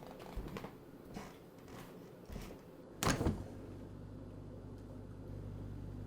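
A few soft footsteps, then a refrigerator door pulled open about three seconds in, followed by a steady low hum.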